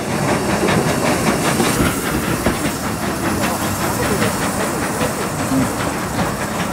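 Saddle-tank steam locomotive moving slowly on its own, with loud hissing steam and a quick, regular run of beats.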